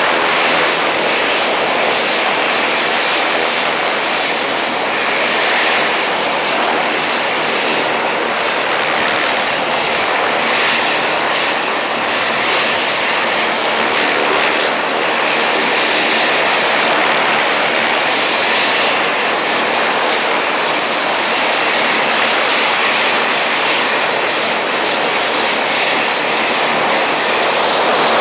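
UH-1Y Venom helicopter running on the ground: its twin turboshaft engines and four-blade main rotor turning at ground idle make a steady, even, loud noise. A faint high whine joins about two-thirds of the way in.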